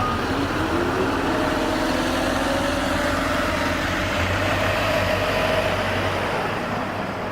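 Keisei city bus running under way: a low engine rumble with a drivetrain whine that rises in pitch over about the first second and then holds steady as the bus moves off.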